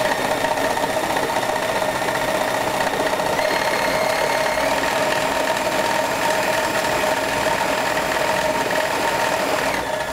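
Food processor motor running steadily, blending a thick pumpkin pie filling; its whine dips briefly near the end and then picks up again.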